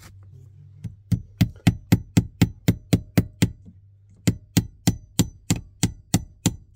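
Hammer tapping a staple into a wooden floor joist to fasten an electrical wire, in quick light strikes of about four a second. There are two runs of strikes with a short pause near the middle.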